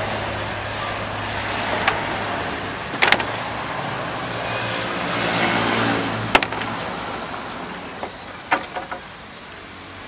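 Road traffic going by, a steady vehicle noise that swells and fades, with a few sharp knocks of wooden planks being handled.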